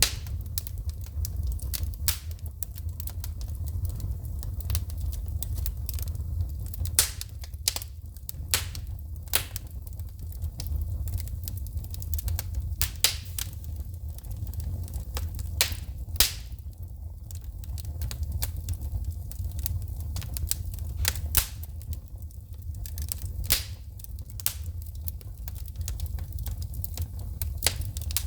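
Wood fire crackling, with sharp irregular pops and snaps from sparking logs over a steady low rumble of the burning fire.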